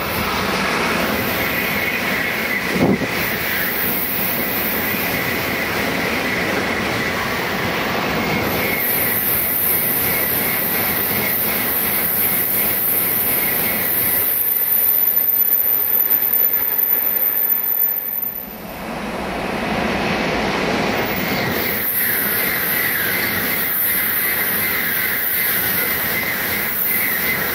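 Tokaido Shinkansen bullet train passing close at speed: a steady, loud rush of wheels on rail and air. It dips briefly about two-thirds of the way through, then swells again.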